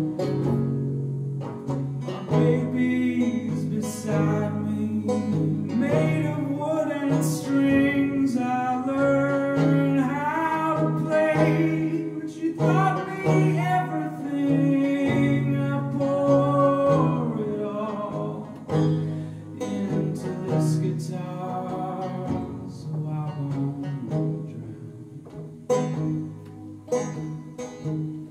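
Banjo picked in a slow folk song, with a man singing over it through much of the first two-thirds and a steady low drone underneath. The banjo carries on alone near the end.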